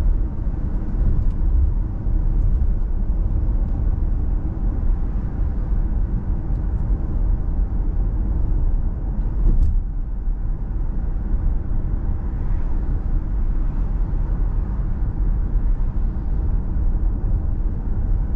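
Steady road and wind noise inside the cabin of an electric Genesis GV70 at highway speed of about 100 km/h: an even, low rumble with new sound deadening fitted. There is one brief click a little past halfway.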